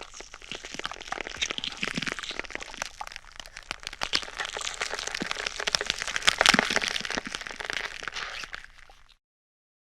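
Bone crunch and snap sound effect: a dense run of rapid cracking and crackling, loudest about two-thirds of the way through, then fading out and stopping shortly before the end.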